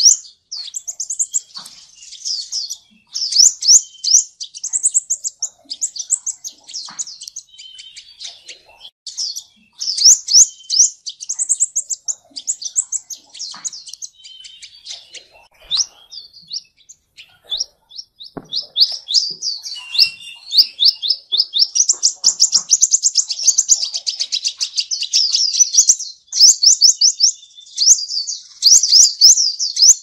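Sunbird calling: quick runs of high, thin, sharply rising notes in bursts with short gaps, packing into a faster, denser trill a little past the middle.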